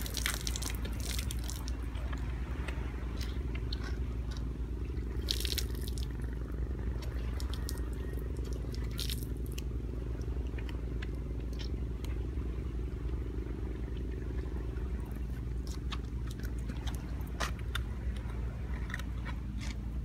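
Steady low rumble with scattered short clicks and crackles, as dogs eat food off the road.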